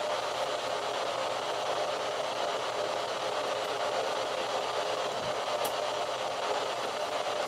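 Steady hiss of static with no pitch to it, and a faint low knock and a brief high tick about five seconds in.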